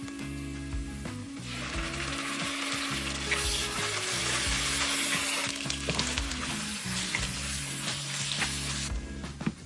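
Chicken curry frying and sizzling in a hot pan while being stirred. The sizzle grows loud about a second and a half in and drops away near the end.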